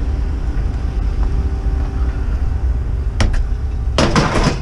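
Lengths of aluminium scrap knocking and clattering as they are loaded into the back of a minivan: one short knock about three seconds in, then a louder clatter near the end. A steady low rumble runs underneath.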